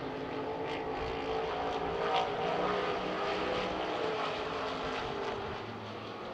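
Several vintage dirt-track stock cars racing around the oval together, their engine notes overlapping and rising and falling in pitch as they accelerate and back off.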